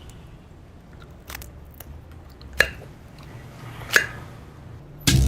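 A few sharp, isolated clicks or taps over a faint low hum, then music with a percussive beat starts just before the end.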